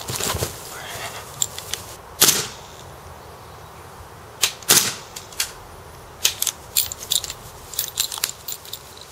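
Gas blowback airsoft M4 rifle firing single shots, heard as sharp cracks. The loudest come about two seconds in and again just under five seconds in, followed by a string of lighter clicks near the end. Clothing rustles against the grass at the start as the shooter gets down prone.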